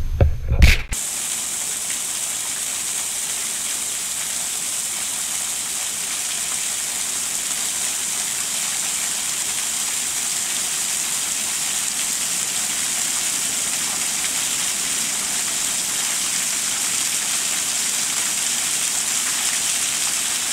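Small seasonal waterfall: thin streams of water falling over a rock ledge and splashing onto the rock below, a steady even hiss from about a second in. A brief rumble and a few bumps come before it in the first second.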